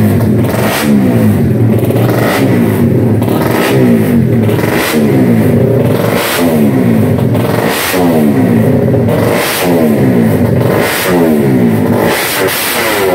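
Race-prepared Honda Supra GTR 150 single-cylinder engine revved on the stand in quick repeated throttle blips, about one every second. Each rev falls away before the next one.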